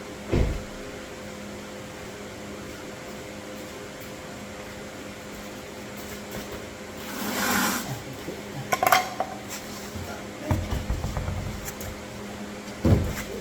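Scattered knocks, clinks and thumps of brake caliper parts and pads being handled during a front brake pad change, over a steady electrical hum. A brief rushing noise comes about halfway through.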